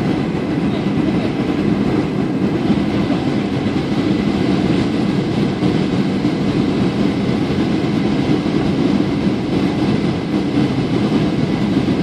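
Steady cabin noise inside a Boeing 737-800 on its landing approach: the even rumble of its CFM56-7B turbofan engines and the air rushing past the fuselage.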